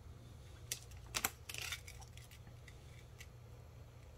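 Clear transfer film being peeled by hand off a vinyl wheel decal: faint crinkling with a few light clicks, loudest about a second in, over a steady low hum.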